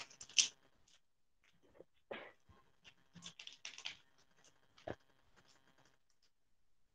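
Wrapper of a two-part resin clay packet crinkling and tearing as it is opened by hand: irregular short crackles and small clicks, stopping about six seconds in.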